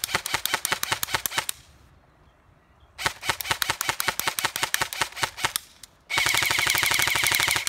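KWA SR10 electric airsoft rifle (AEG) firing. Two strings of rapid shots, each a few seconds long, come first. Near the end a faster continuous burst follows, with a steady whine under the shots.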